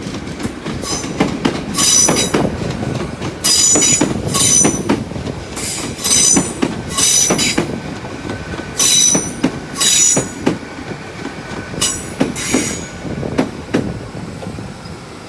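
A Class 802 IET train running slowly into the platform, its wheels squealing high-pitched in repeated bursts about a second or two apart over a steady rolling rumble.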